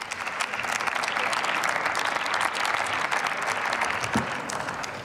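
Applause from the members of parliament, many hands clapping, tapering off near the end.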